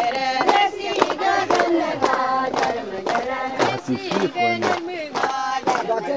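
A crowd of many voices singing a chant together, the voices overlapping, with sharp accents about three times a second.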